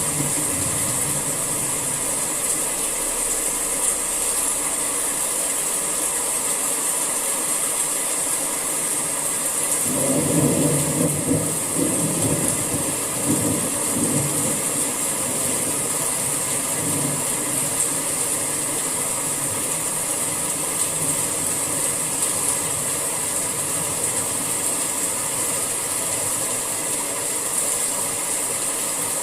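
Steady summer rain, an even hiss, with a low rumble swelling up about ten seconds in and fading over a few seconds.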